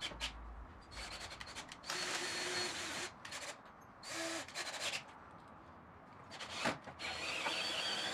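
Cordless drill running in a few short runs with a steady whine: pilot-drilling a hole through a diamond plate rocker panel with a 7/64 bit, then driving a self-tapping screw near the end. A sharp click comes just before the last run.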